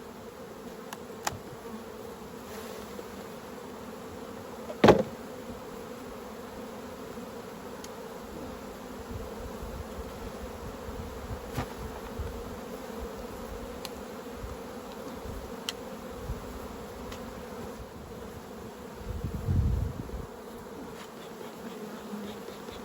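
Honeybees buzzing in a steady hum around an open hive while they are shaken down into the bottom box. There is a sharp knock about five seconds in, as the hive gear is jarred to knock the bees down, a few lighter clicks, and a brief low rumble near the end.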